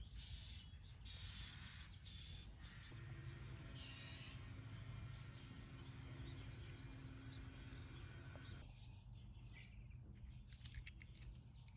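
Faint outdoor ambience with a steady low rumble and a single bird call about four seconds in, followed by a few sharp clicks near the end.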